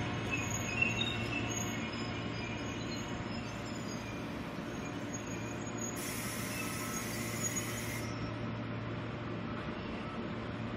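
Electric commuter trains running on the line: a steady rail rumble and low hum, with a brief hiss about six seconds in.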